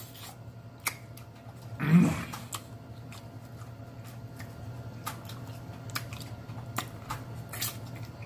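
Close-up eating sounds of a man chewing baked tilapia: scattered wet mouth clicks and lip smacks, with a brief hum of the voice about two seconds in, over a faint steady low hum.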